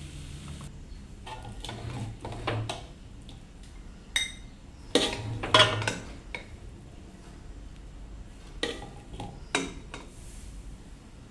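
Metal kitchen utensils clinking and scraping against dishes in a series of separate knocks, loudest in a cluster about five seconds in.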